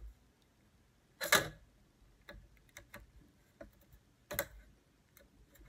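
A small metal pick clicking and scraping in the groove of an aluminium screen-frame rail as the rubber spline is pried out: a scatter of light ticks, with two louder clicks about a second in and again past four seconds.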